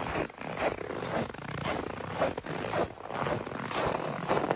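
Footsteps crunching on packed snow, about two steps a second.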